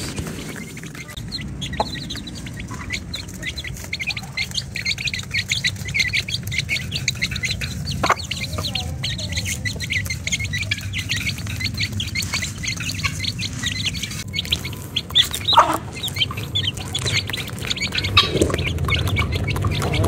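Chickens feeding on scattered grain: young chicks peeping rapidly and continuously, with occasional clucks from the hens.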